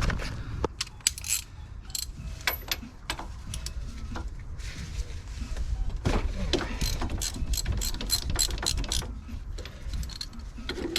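Socket ratchet clicking in quick runs as the front brake caliper carrier bolts are undone.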